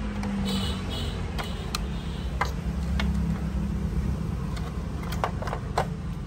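A low steady rumble with a few short, light clicks and taps, most of them in the last second and a half, as parts are handled.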